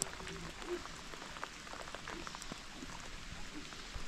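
Steady rain falling, with many separate drops tapping on a surface.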